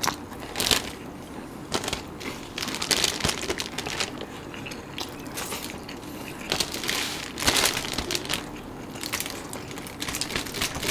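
Close-up crunching and crackling of eating, in irregular bursts: chewing crunchy food and handling the food on its newspaper wrapping.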